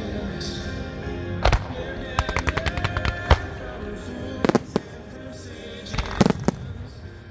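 Fireworks exploding over music: a loud report about one and a half seconds in, then a rapid string of cracks, followed by further single loud booms around four and a half and six seconds in.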